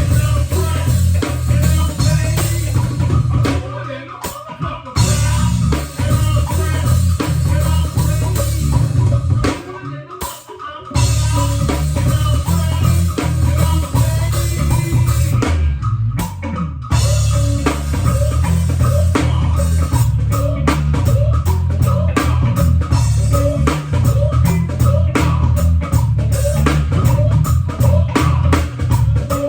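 Live band playing, with heavy bass guitar, guitar and drum kit in a steady groove. The band stops together briefly three times, about 4, 10 and 16 seconds in.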